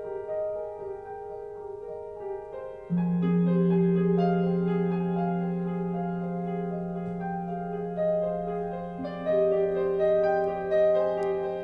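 Solo piano played live: slow held notes and chords, with a strong low note coming in about three seconds in and the music growing louder. Recorded through a phone's microphone.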